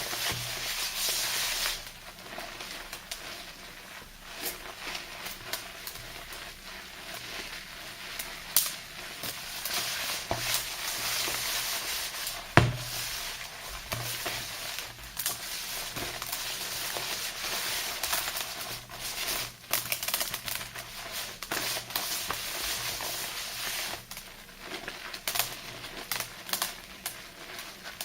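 Thick soap lather being worked by hand into a paste: a steady wet squishing and crackling with many small clicks, and one sharp click about halfway through.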